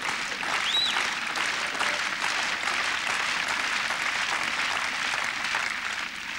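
Tennis crowd applauding steadily between points, with one short whistle that rises and falls about a second in.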